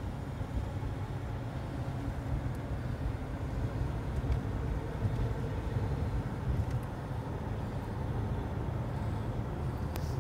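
A car driving along a highway, heard from inside the cabin: a steady low rumble of road and engine noise.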